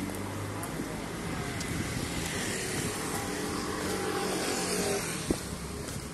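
A motor vehicle's engine running close by, its noise swelling through the middle and easing off near the end as it passes. One sharp knock near the end.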